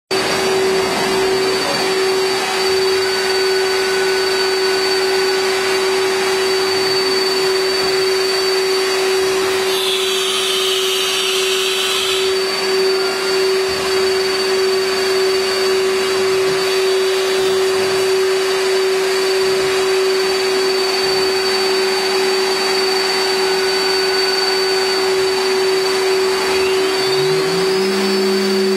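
CNC router spindle running at speed with a steady high whine over a loud, even machine noise. Near the end a lower motor hum rises in pitch and then holds.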